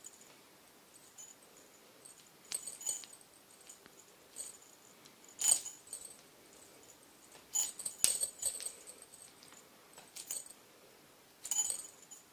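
Small jingle bell jingling in short, irregular bursts as a cat swats at a dangling fur teaser toy, the loudest jingles about five and a half and eight seconds in.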